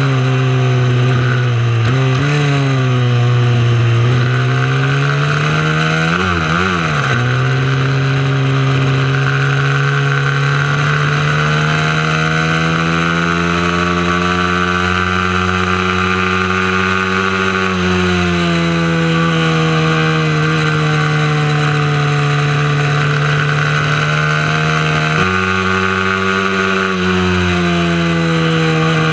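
Mini motorcycle engine running continuously at racing throttle, its pitch rising and falling slowly as it accelerates and eases off, with a few sudden steps in pitch as the gears change and a brief wavering about six seconds in.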